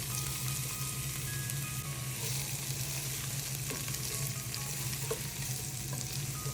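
Food sizzling in hot oil: a steady frying hiss with scattered small crackles and pops, over a steady low hum.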